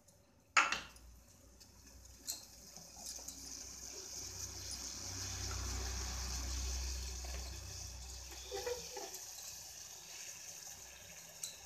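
Water heating in a metal pot and coming to the boil: a steady bubbling hiss with a low rumble that swells toward the middle and eases again. A sharp click sounds about half a second in.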